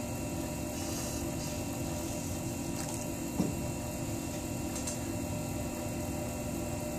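Electric potter's wheel running steadily, a constant motor hum, with one brief thump about three and a half seconds in.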